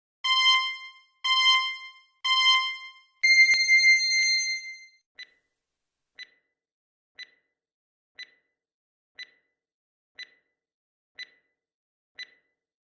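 Electronic countdown timer sound effect: three short beeps a second apart and a longer fourth beep, then eight ticks once a second like a clock counting down.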